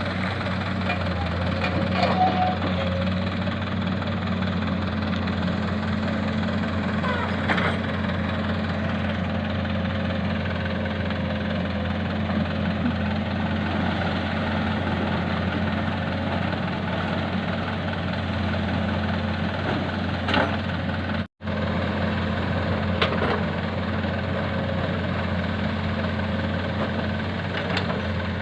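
Heavy diesel machinery engine running at a steady speed, with a few sharp knocks now and then and a momentary break about twenty seconds in.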